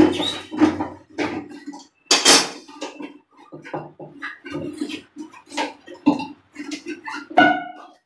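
A brush scrubbing the inside of a plastic toilet flush tank in quick, irregular strokes, with a few louder knocks of the tank about two seconds in and near the end.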